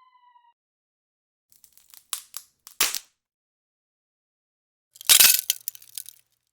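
Breaking-and-clinking impact sound effects. A short cluster of sharp cracks and clinks comes about two to three seconds in, then a louder shattering crash about five seconds in, trailed by scattered small tinkling hits. A falling electronic tone from the previous effect fades out at the very start.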